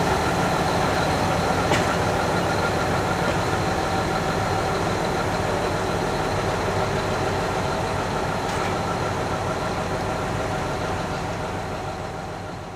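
Railway diesel engines running steadily, with a faint click about two seconds in and another near nine seconds; the sound fades away near the end.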